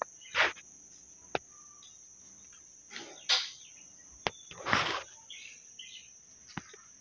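A sponge full of soapy suds is squished and rubbed over the brass air fittings of a PCP airgun receiver for a soap-bubble leak test, in a few short wet rubs with some sharp clicks. A steady high cricket trill runs underneath.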